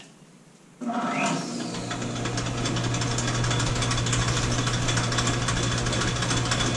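Old Sidney engine lathe, driven by a 110-volt electric motor through a belt drive, switched on about a second in: a whine rises as it spins up, then it settles into a steady hum with a fast rattling clatter of the drive.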